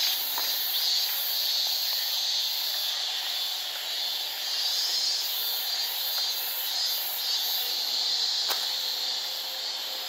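Steady chorus of insects, a continuous hissing buzz, with a fainter, higher pulsing about twice a second on top.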